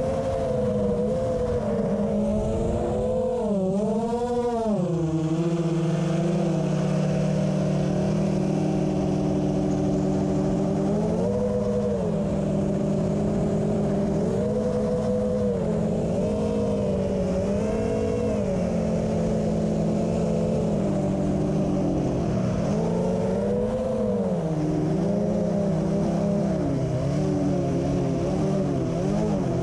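Quadcopter's electric motors and propellers, heard from the GoPro mounted on it: a steady whine of several tones whose pitch rises and falls again and again as the craft climbs and turns.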